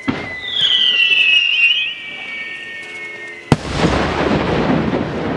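Maltese daylight firework shell: a sharp report at the launch, then a falling whistle, then one very loud bang about three and a half seconds in. The bang is followed by a long rolling rumble of echo.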